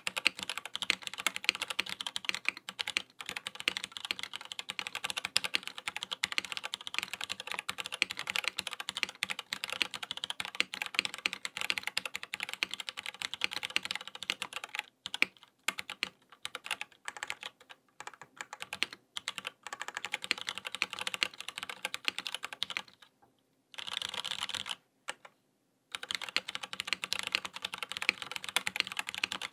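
Typing on a Matrix Falcon mechanical keyboard in an aluminium case, with stock Cherry MX2A Brown tactile switches and KeyKobo Miami Dawn keycaps. The keystrokes come thick and even at first, thin out to scattered strokes past the middle, then stop twice briefly a few seconds before the end and pick up again.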